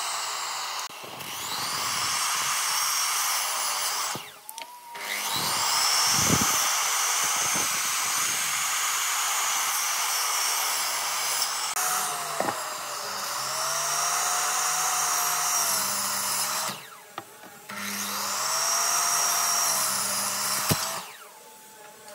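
Electric miter saw running in repeated runs while crosscutting pine blocks. The motor spins up with a rising whine after short breaks about four and a half seconds in and again about seventeen seconds in, and cuts off near the end.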